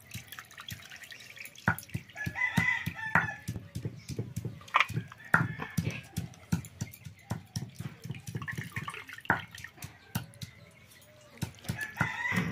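Hands washing raw goat meat in a steel bowl of water: repeated splashes, sloshes and drips as the pieces are squeezed and lifted out. A rooster crows about two seconds in, and chickens call again near the end.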